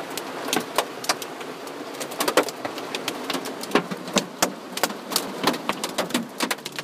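Hailstones striking an asphalt-shingle roof: irregular sharp ticks and knocks, several a second, over a steady hiss.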